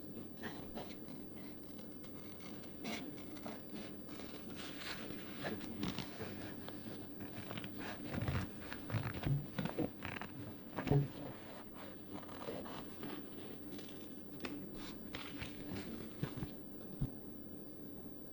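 Paper being handled and worked by hand: scattered rustling, scraping and small clicks, with a busier run of soft knocks and rubbing about halfway through. A faint steady hum lies underneath.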